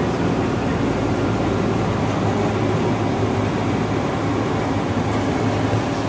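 Ford F-250 pickup's engine idling steadily at just under 1,000 rpm, heard from inside the cab.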